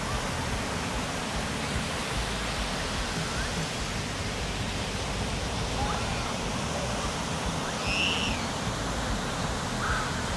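Steady rushing noise, with a few faint short high chirps, the clearest about eight seconds in.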